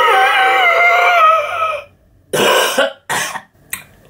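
A man's long drawn-out vocal wail, wavering and sliding down in pitch, followed by two short rough coughs and a brief sharp breath sound.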